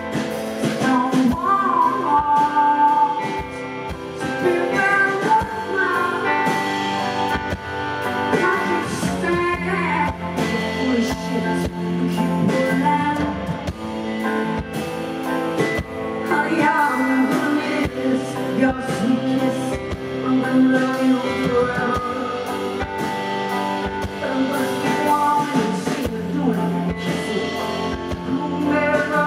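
A live band playing with a woman singing, drums and keyboard behind her, amplified through the stage sound system.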